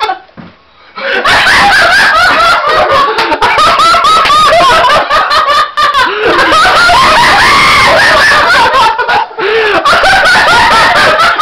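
A man laughing hard and loudly, a high-pitched laugh that breaks out about a second in and goes on almost without pause.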